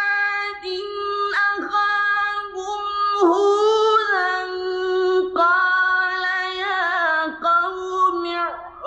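Qur'an recitation in the melodic mujawwad style: a high, clear male voice holding long, ornamented notes, in several phrases with short breaks between them.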